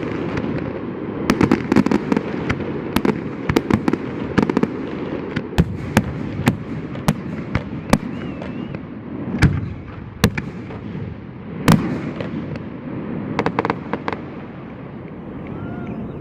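Fireworks display: rapid bangs and crackling over a steady rumble, with a few louder single booms about nine and a half, ten and twelve seconds in, thinning out near the end.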